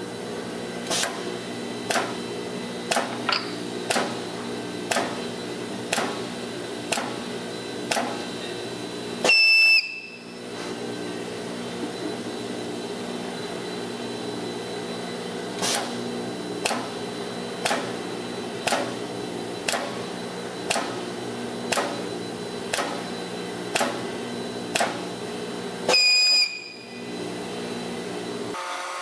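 Robotic workcell machinery running with a steady hum and a sharp click about once a second. Twice, a short high electronic beep sounds, and the hum cuts out briefly each time. The hum stops near the end.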